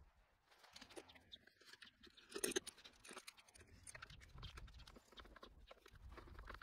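Faint handling noises of plastic pressure washer parts being worked by hand: scattered light clicks and scrapes, with a brief louder clatter about two and a half seconds in.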